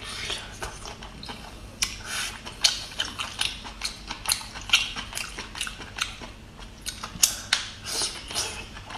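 Close-up chewing of a person eating braised abalone, a run of many sharp, irregular clicks.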